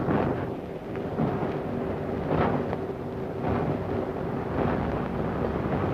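Diesel multiple unit railcar running along the track, a steady rumble with a faint engine hum. A beat recurs about once a second as the wheels cross rail joints.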